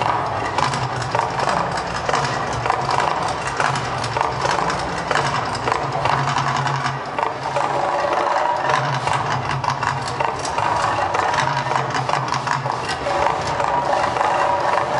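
Volcano show soundtrack played loud over outdoor loudspeakers: a low pulsing rumble that swells and drops every second or two, under dense, rapid percussive strikes.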